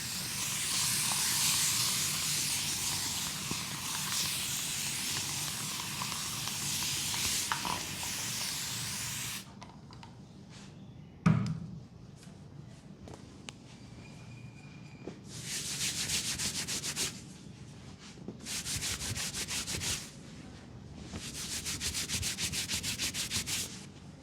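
Rubbing on skin during a leg massage: a dense, steady rub for the first nine seconds, a single thump about eleven seconds in, then three short bursts of fast back-and-forth strokes.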